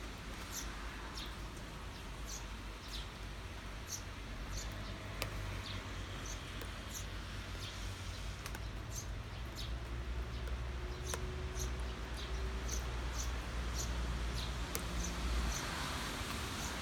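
Steady afternoon rain with a stream of short, high chirps repeating through it. A low rumble swells about ten seconds in and drops away near the end.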